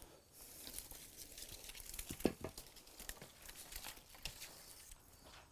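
Faint crackling and rustling of dry branches and twigs in a brush pile, with scattered small snaps and one louder snap about two seconds in.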